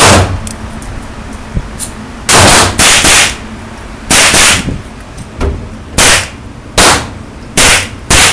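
Ruger LCP .380 pocket pistol firing a string of about eight or nine shots at a steady pace, each a sharp, very loud crack, with fainter shots from other guns between them.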